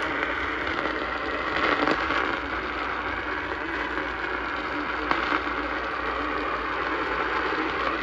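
Sangean weather alert radio's speaker giving a steady hiss of radio static with no clear station audio, while its tuning buttons are pressed; a sharp click about five seconds in.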